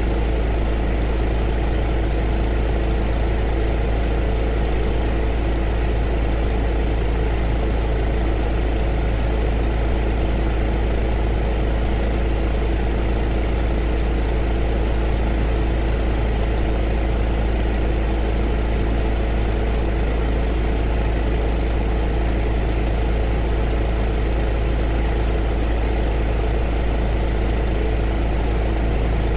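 Heater running: a steady, unchanging whir with a deep hum and a few steady tones.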